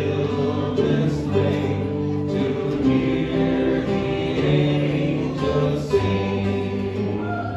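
Voices singing a traditional Christmas hymn together, accompanied by strummed acoustic guitars, ukulele and banjo.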